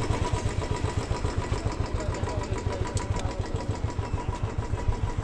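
Motorcycle engine running with a quick, even low pulse, several beats a second.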